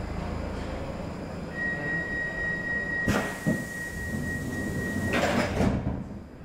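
Stockholm Metro C6 train's door-closing sequence: a steady high warning tone sounds for about three and a half seconds while the doors shut with a click, a thud and a hiss of air that stops just before the end.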